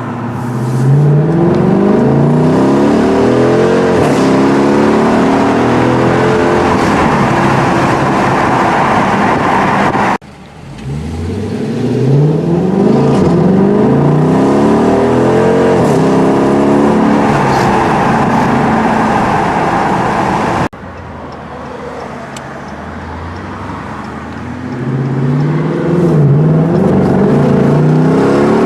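A 2015 Dodge Challenger R/T's 5.7-litre HEMI V8, running through a Solo Performance cat-back exhaust, accelerating hard. Its pitch climbs and drops back several times as it shifts up through the gears. The sound cuts off abruptly twice, about a third and two-thirds of the way through, and starts again.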